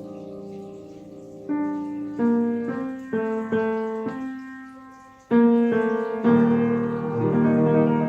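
Yamaha UX50 upright piano being played. A held chord dies away, then a run of struck notes and chords follows, with a louder chord about five seconds in that rings on under further notes.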